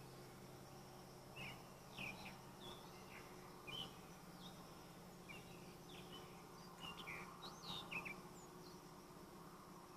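Faint outdoor ambience of small birds chirping, short quick swooping notes scattered through, over a steady low hum and a faint high insect drone.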